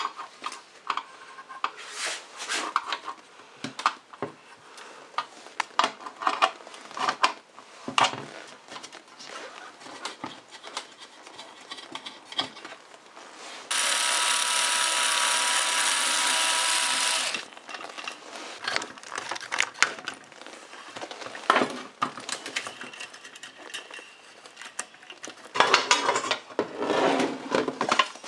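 Metal parts of an antique sandwich toaster clicking and clanking as they are unscrewed and handled, with a cordless drill-driver whirring steadily for about three and a half seconds in the middle as it turns a screw at the heating element's ceramic terminal block. A burst of clatter near the end as the metal plates are handled.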